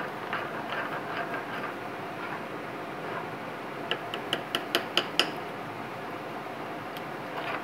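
A spoon stirring a thin marinade in a wooden mortar, then a quick run of about seven sharp taps, about five a second, as the spoon is knocked against the bowl, the last tap the loudest; one more light tap follows.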